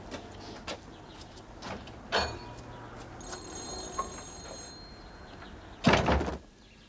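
Light footsteps and small taps, with a sharper door clunk about two seconds in. Near the end comes a short, loud rustling flap of cloth as a sheet is shaken out on a washing line.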